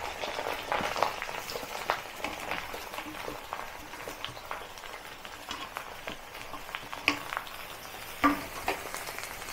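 Eggplant slices dropping into hot oil in a kadhai, sizzling and crackling, with knocks of the pieces landing and of the steel plate they are tipped from. The crackle is busiest in the first few seconds while the slices go in, then settles to a quieter steady frying.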